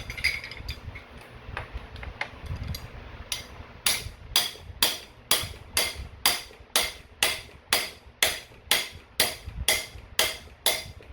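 Hammer striking a driver tool set over a new bottom bracket, knocking it evenly into the e-bike frame's bottom bracket shell. A few light taps, then from a few seconds in a steady run of sharp metallic blows, about two a second.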